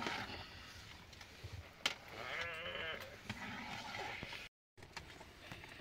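Sheep bleating: a short call at the start and a longer, quavering one about two seconds in.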